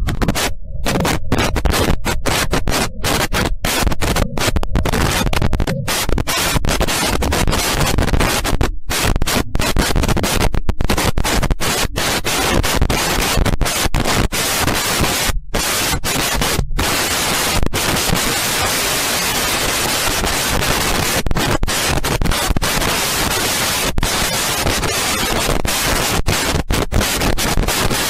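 Loud, harsh static noise from a glitch sound effect, chopped by many brief dropouts through the first half, then settling into a steadier hiss after about seventeen seconds.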